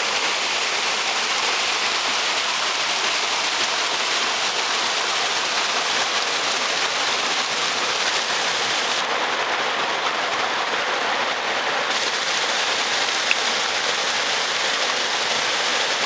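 Rushing water of a rocky river cascade: white water pouring over rocks with a steady, even hiss. One brief click late on.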